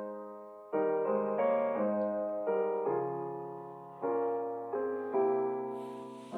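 Slow, gentle background piano music: soft chords struck about once a second, each left to ring and fade.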